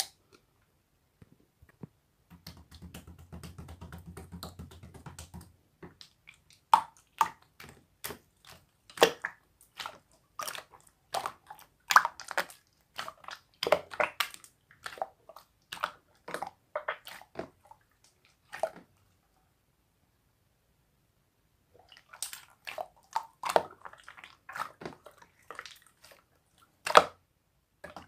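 Close-up chewing and crunching, a string of irregular sharp crunches, with a low hum for a few seconds near the start and a pause of a few seconds past the middle.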